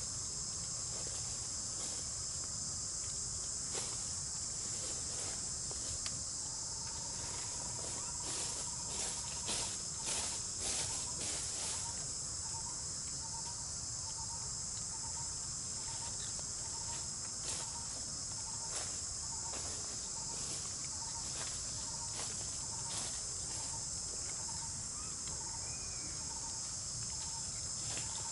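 Steady high-pitched chorus of insects droning without a break, with scattered short clicks and rustles, thickest about a third of the way in. A faint note repeats about once a second in the background through the second half.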